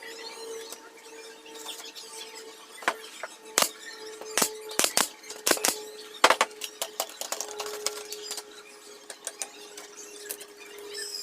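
Wooden parts and tools knocking and tapping during workshop assembly: a quick run of sharp knocks about three to six seconds in, over a steady high-pitched hum.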